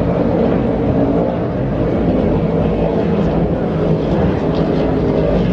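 Engines of racing offshore powerboats running in a loud, steady drone.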